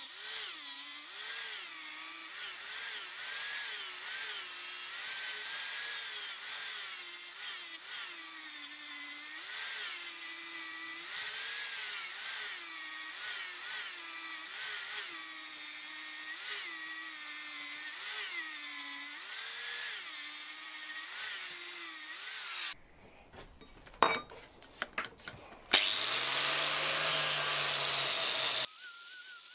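Angle grinder with a sanding disc working the face of a steel hammer head, its motor pitch dipping and recovering about once a second as the disc is pressed on and eased off. About three-quarters of the way in the sound cuts to a quiet moment with two sharp clicks, then a few seconds of steadier, lower-pitched grinding with sparks that stops just before the end.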